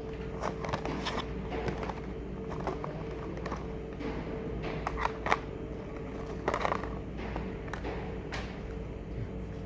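Packaging being handled during an unboxing: scattered clicks and rustles of box and plastic, the sharpest about five seconds in, over a steady low hum.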